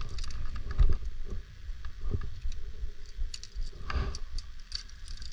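Scattered light clicks and ticks of climbing hardware, with a louder clatter about four seconds in, over a low rumble of wind and handling on the microphone.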